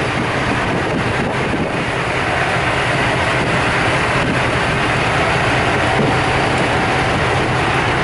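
Diesel engine running steadily as a low hum, with wind buffeting the microphone.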